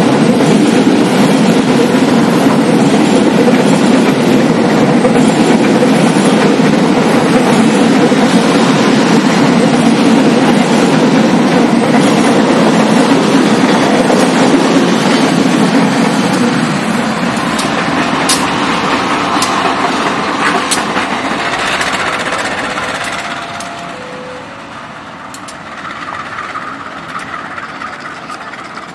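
Passenger train coaches rolling past at close range: a loud, steady rumble of steel wheels on the rails. After about two thirds it eases off, with a few sharp clicks, then falls away further near the end.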